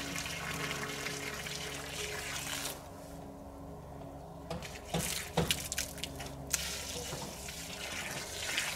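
Water pouring from a watering can onto garden soil, stopping abruptly about three seconds in. A few light knocks and clicks follow.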